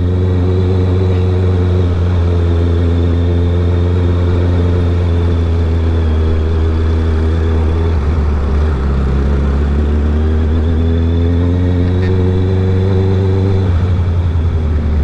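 Honda CB650R's inline-four engine running through an aftermarket R11 full exhaust while the bike is ridden, a steady engine note that shifts about eight seconds in and again near the end.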